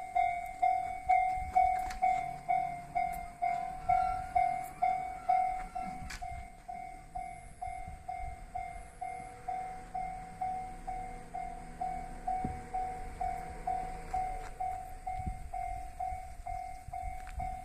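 Japanese railway level-crossing warning bell ringing its 'kan-kan' tone, a little under two strokes a second, each stroke dying away before the next. A low rumble sits underneath.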